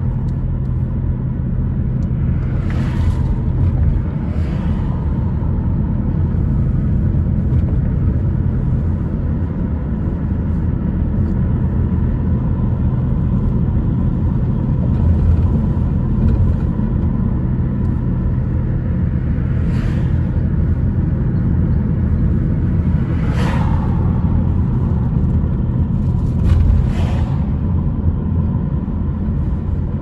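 Steady car road noise heard from inside the cabin: engine and tyres making a low rumble with a constant low hum. A few brief sharp noises break through it, one a few seconds in and three more in the second half.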